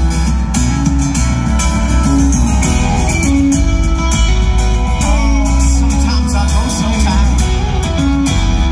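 Live rock band playing loudly through a concert PA: electric guitar and drums over heavy, steady bass, heard from the audience.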